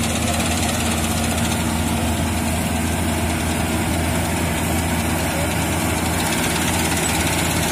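Combine harvester running steadily while cutting wheat: an even, low engine drone with the machine's mechanical noise over it.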